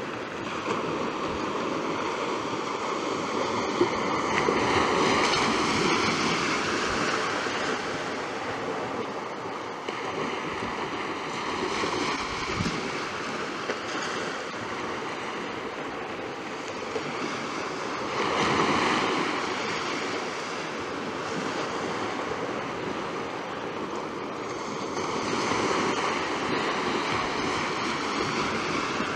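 Sea surf breaking on a sandy beach: a steady wash of waves that swells louder three times, about 5, 18 and 26 seconds in.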